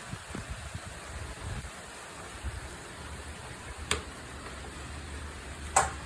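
Heavy rain falling, a steady hiss, with low rumbling on the microphone. A faint click just before four seconds in and a sharper knock near the end.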